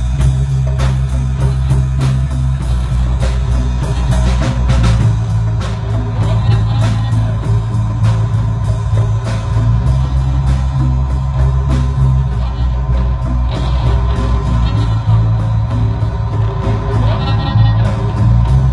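Rock music with electric guitar, bass and a drum kit keeping a steady beat.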